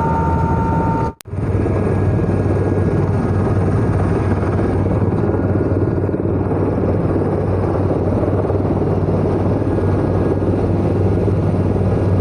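Helicopter engine and rotor running steadily, a loud beating drone, with the sound breaking off for an instant about a second in.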